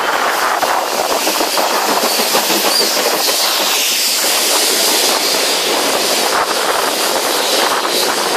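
Ka-class 4-8-4 steam locomotive 942 passing close by with steam hissing from its cylinders, then its tank wagons and carriages rolling past with wheels clattering over the rail joints.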